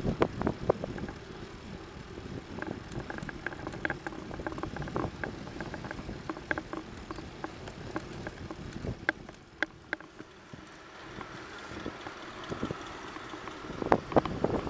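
Wind noise on a bicycle-mounted camera's microphone while riding along an asphalt road, with scattered clicks and knocks throughout. The noise grows sharply louder at the very end.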